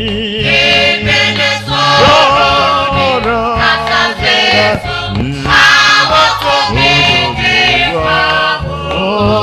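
Gospel choir singing with instrumental backing, voices sliding between held notes over a steady bass line.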